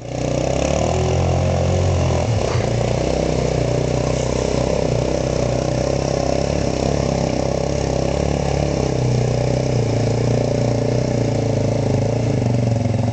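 ATV engine running at a steady, low speed, near idle, with a brief change in its sound about two seconds in.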